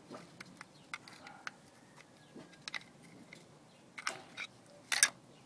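Light plastic clicks and taps from handling the opened door lock actuator's housing, motor and gear, with two sharper knocks about four and five seconds in, the second the loudest.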